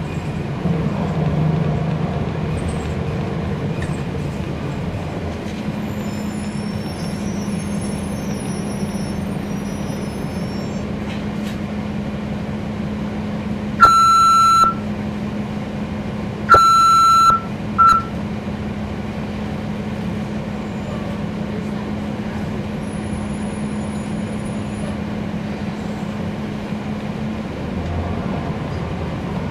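Cummins ISL9 diesel engine of a NABI transit bus running steadily, heard from inside the bus as a steady drone. About halfway, an electronic beeper sounds twice, each beep nearly a second long, followed by a short third beep.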